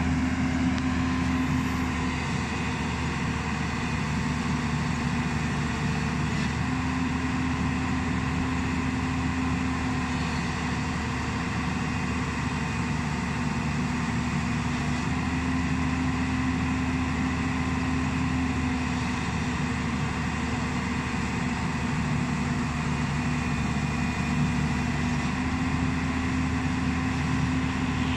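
JCB 205 tracked excavator's diesel engine running steadily at high revs, working as the machine moves itself onto a lowbed trailer.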